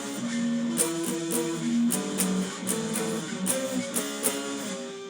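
Guitar strumming a run of chords, each struck sharply, moving up through several changes.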